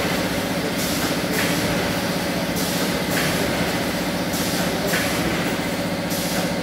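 Automatic snack pouch packing machine running, with a multihead weigher and bucket elevator: a steady motor hum, with pairs of short air hisses about every two seconds from its pneumatics cycling through each pouch.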